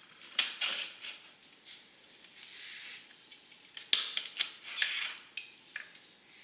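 Small hard parts being handled at a bicycle handlebar: a series of clicks and taps with brief rustling between them, the sharpest click about four seconds in.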